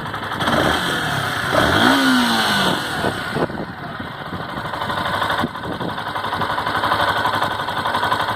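Yamaha Factor 150 single-cylinder four-stroke motorcycle engine running. It is revved up once about half a second in and falls back to idle by about three seconds, then runs steadily. The owner hears a woodpecker-like tapping from the engine, which he was told could be the cam chain.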